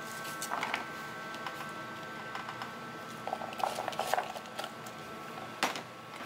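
Fingers tossing chopped ingredients in flour in a plastic bowl: soft rustling and light clicks, busiest about three to four seconds in, with one sharp tap against a dish near the end. A faint steady high whine sounds behind it.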